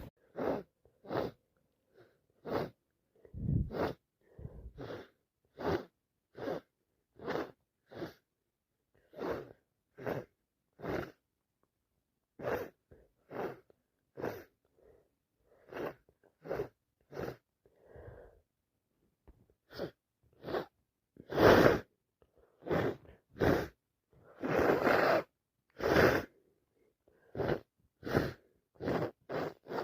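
A person with a wet head cold sneezing again and again in a long string of short bursts, about one a second. Several louder sneezes come in the second half.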